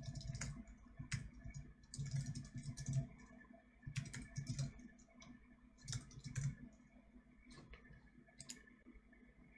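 Typing on a computer keyboard in short runs of keystrokes with pauses between them, fairly faint.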